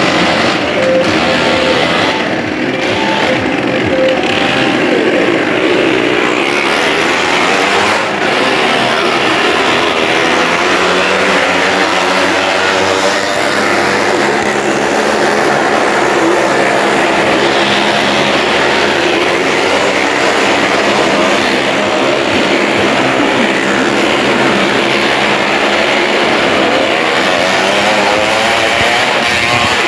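Several motorcycle engines revving and running hard, their pitch rising and falling as the riders circle the vertical wooden wall of a well of death. Music plays underneath.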